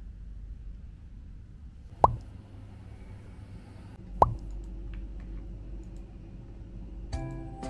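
Two short cartoon-style 'plop' pop sound effects, each dropping quickly in pitch, about two seconds apart, over a low steady room hum. Soft piano music begins near the end.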